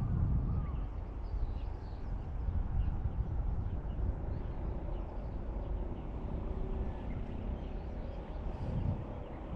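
Outdoor riverside ambience: a steady low rumble of wind and flowing water, with a crow's caws ending about half a second in and faint chirps of small birds throughout.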